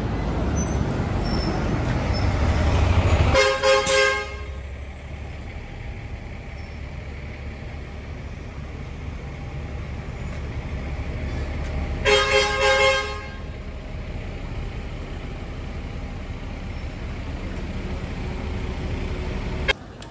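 Street traffic rumble with a vehicle passing close, and a car horn honking twice: once about three and a half seconds in and again about twelve seconds in.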